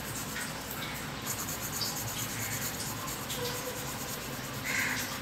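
A pencil shading lightly on paper, a soft, steady scratching.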